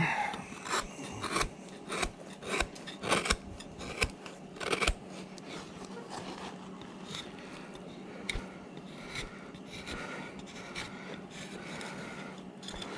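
Hand carving gouge cutting chips from a hard wooden carving blank: a quick run of sharp, crisp cuts over the first five seconds, then quieter scraping strokes as the leg is rounded.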